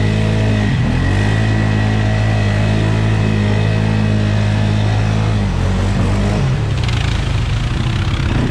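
Off-road vehicle engine running at a steady speed, dipping briefly and picking back up about a second in, then rising and falling with the throttle over the last few seconds. A rush of noise joins it near the end.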